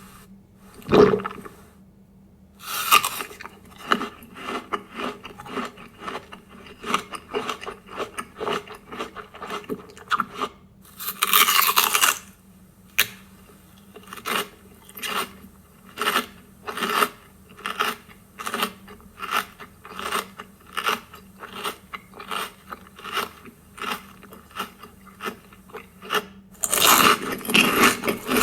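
A series of short scraping or crunching strokes, about two a second through the middle stretch, broken by a few longer scraping passes.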